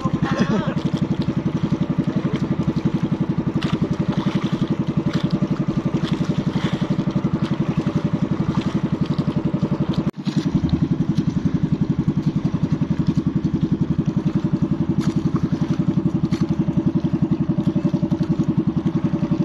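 Small engine of an outrigger motorboat running steadily underway, with a fast, even pulse. The sound breaks off for an instant about ten seconds in.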